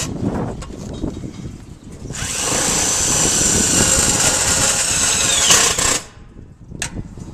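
Power drill driving a 5/16 self-tapping screw into a filter unit's corner piece, starting about two seconds in, running steadily for about four seconds and stopping abruptly.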